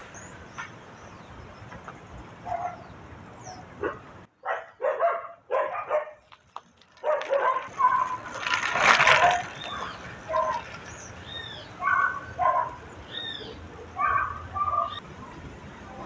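Dogs barking in repeated short bursts, with birds chirping high above.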